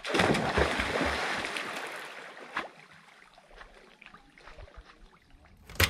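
Loud splash of a person diving headfirst into a lake, followed by the stirred-up water washing and fading away over the next few seconds.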